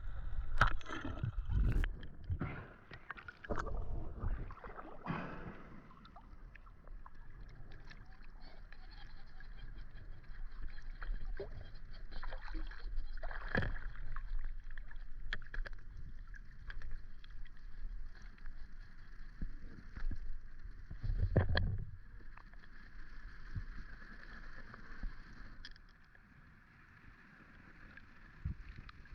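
Water moving and sloshing, with scattered knocks and a cluster of thumps in the first few seconds and another heavy thump about two-thirds of the way through.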